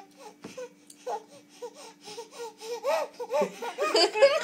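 Baby giggling: a run of short laughs that grow louder toward the end.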